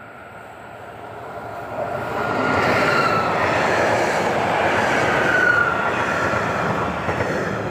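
A train passing close by on the track. The rumble of its wheels swells over about two seconds, holds, then eases off near the end, with two brief high squeals from the wheels.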